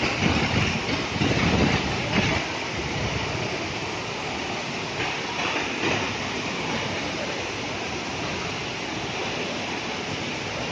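Waterfall's steady rush of falling water, with a louder low rumble over the first two seconds.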